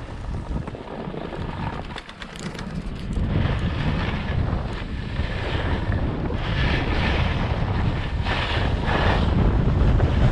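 Wind rushing over the microphone while skiing downhill, with the skis hissing and scraping over snow in swells about every second or so.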